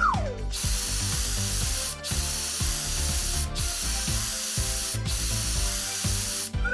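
Cartoon pressure-washer spray hissing in four spells, broken by short gaps about every one and a half seconds, over soft background music. It begins with a short whistle that rises and falls in pitch.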